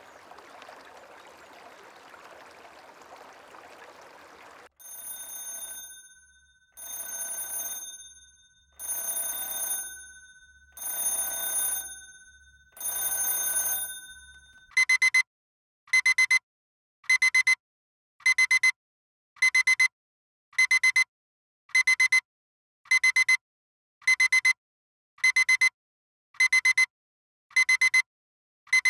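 Soft flowing water sound that cuts off about five seconds in, giving way to a ringing alarm tone that swells in five times, about two seconds apart, each louder than the last. At about fifteen seconds it switches to a loud electronic alarm-clock beeping, short beep bursts repeating about every 1.2 seconds: the timer's wake-up alarm at the end of the 20-minute nap.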